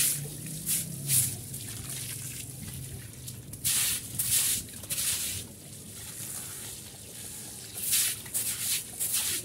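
Water from a garden hose splashing and running on a wet concrete floor and wall, with repeated swishing strokes of a broom scrubbing the concrete; the strokes are loudest about four seconds in and again near the end.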